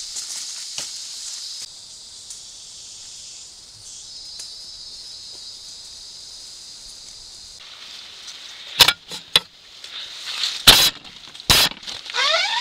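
Steady high insect drone of the rainforest. From about nine seconds in, several loud knocks and scrapes as an Asian elephant bumps and rubs against the camera trap, the two loudest blows a little under a second apart near the end.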